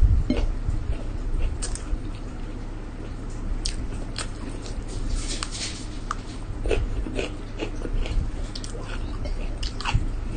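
A person chewing and eating a rice meal by hand, close to the microphone: short wet mouth clicks and smacks come irregularly throughout, over a low steady hum.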